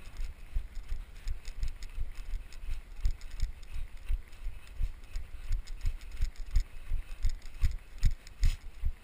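A runner's footfalls in snow, heard through a body-worn action camera: a steady rhythm of low thumps, a few per second, each with a light crunch.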